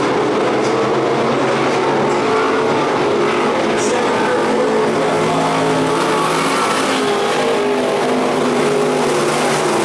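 A pack of stock cars racing, several engines running hard at once with their overlapping pitches shifting up and down as the cars go through the turns.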